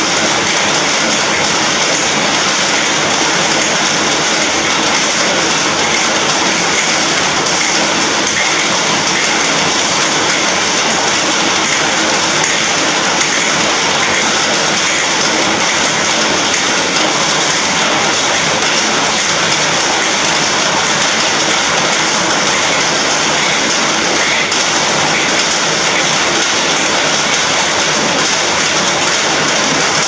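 Heavy rain falling on an iron roof, a loud, dense, even hiss with no let-up.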